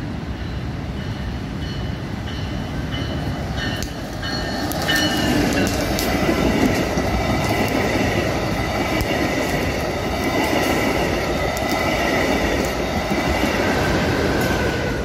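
Brightline passenger train passing close by over a street level crossing. Its wheels run loud on the rails with a steady high squeal, swelling about four seconds in as the coaches reach the crossing. Before that, the crossing bell dings in a quick even rhythm.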